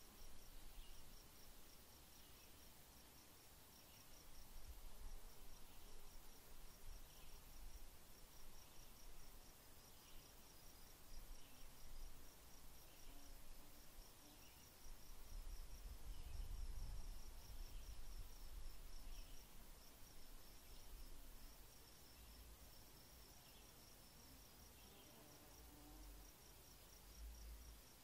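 Faint insect chirping, a steady high-pitched pulse repeating a few times a second, with softer lower chirps every second or so, over a low rumble that swells midway.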